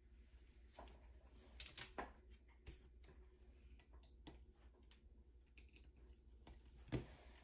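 Faint, scattered clicks and small snips of side cutters working at components on a circuit board, with the sharpest snip about seven seconds in, over a low steady hum.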